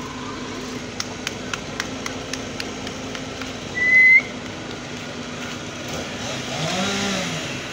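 Fire engine's turntable ladder in motion, its engine and hydraulics running with a steady hum and a few light ticks early on. A short, loud whistle sounds about four seconds in, and a pitched sound swells up and falls away near the end.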